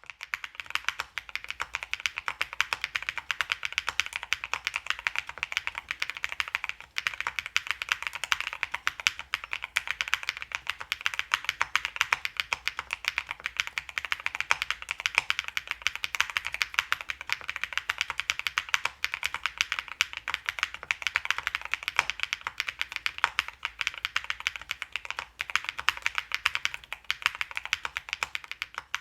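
Fast, continuous typing on a QK75 mechanical keyboard with newly fitted keycaps: a dense run of crisp key clacks.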